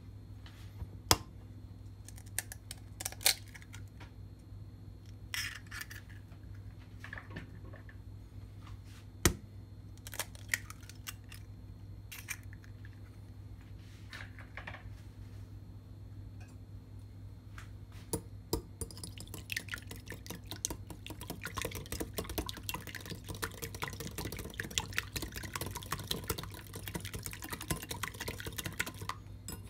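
Kitchen food-preparation sounds: scattered knocks and clicks of utensils and dishes, then about ten seconds of dense crackling and splashing that stops suddenly near the end, over a steady low hum.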